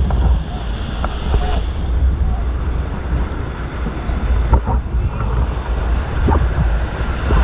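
Rushing river water heard from a raft, under a heavy low rumble of wind buffeting the microphone.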